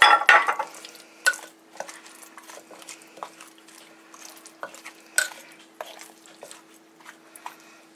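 Metal spoon spreading and stirring thick orange marmalade over baby carrots, vegetables and chicken in a slow cooker crock: scattered scrapes and light clinks of the spoon against the food and the pot, busiest right at the start. A faint steady hum runs underneath.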